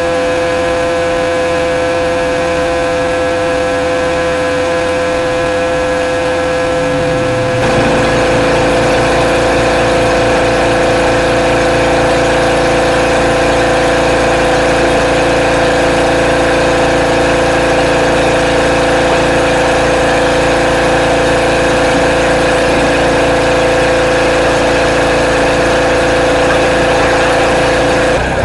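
Pressure washer running steadily; about eight seconds in its sound turns louder and fuller with a lower hum added, and it holds that way until it changes abruptly at the very end.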